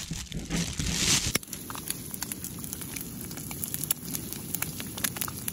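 Two eggs frying in oil in a pan on a camping gas stove: a dense sizzle of irregular small pops and crackles. It starts about a second in, after a steadier rushing noise.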